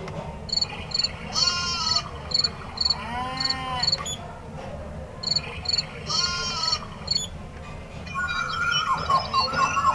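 Nature-sounds alarm clock playing its recorded wildlife sounds: paired high insect-like chirps with arching animal calls, the same pattern heard twice. Near the end, a faster run of rapid chirps begins.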